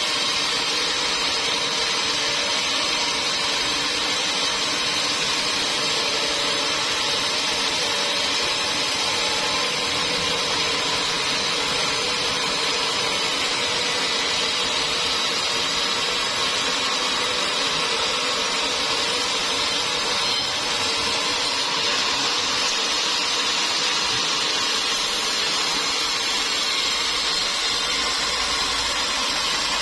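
Sawmill machinery running steadily, a continuous even machine noise with no breaks or pauses.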